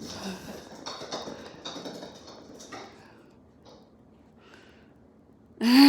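A cat pawing and scratching at an object, making rustling and light tapping sounds for about three seconds before it goes quiet.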